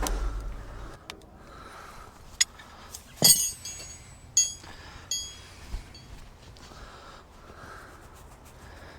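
Hand tools clinking against metal: several sharp metallic clinks with a short ring, the loudest about three seconds in and others about a second and two seconds later. A low rumble dies away within the first second.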